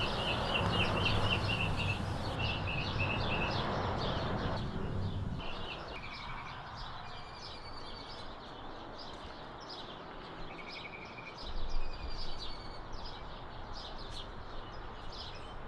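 Small birds chirping repeatedly over a steady background noise with a low hum, which drops away about five seconds in.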